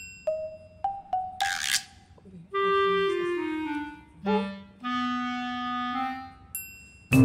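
Background music: a woodwind melody of slow held notes stepping up and down, with a short swish about a second and a half in and a sudden loud hit right at the end.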